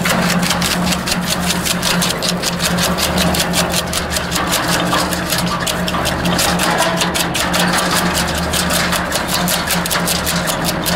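Wood chipper running with a steady engine drone and a fast, even clatter while branches are fed down its chute into the cutter.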